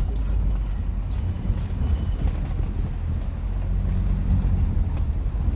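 Hyundai Tucson 2.0's exhaust with the rear muffler removed, the engine running steadily with a low drone and no revving.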